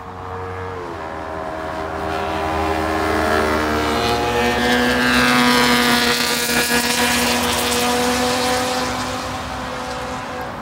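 Sport motorcycle engine running at high revs as the bike passes by, the note briefly dropping about a second in, then building to its loudest about halfway through and fading towards the end.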